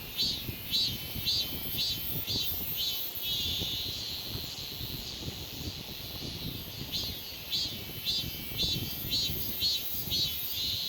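Cicada singing: a rhythmic series of high buzzing pulses, about two a second, merging into a steadier buzz about three seconds in. After a quieter stretch the pulses start again about seven seconds in.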